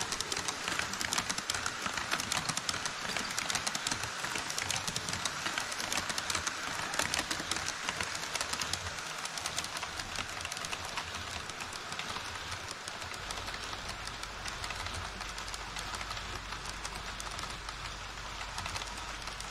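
HO scale model train running on KATO Unitrack, its wheels making a fast, uneven clatter of clicks over the rail joints. A low steady hum comes in about two-thirds of the way through.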